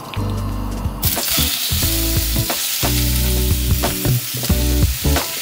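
Marinated chicken thighs and sliced onion dropped into a hot oiled frying pan over high gas heat, setting off loud sizzling about a second in that keeps going, with scattered small clicks as pieces land.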